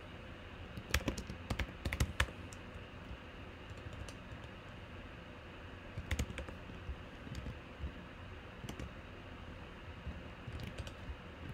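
Computer keyboard typing in a few short bursts of keystrokes with pauses between, the loudest burst about one to two seconds in.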